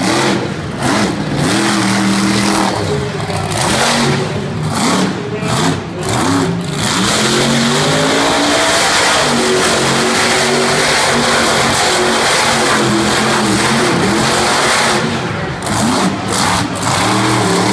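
Monster truck engine revving up and down repeatedly, then held at high revs for several seconds in the middle before dropping and rising again near the end.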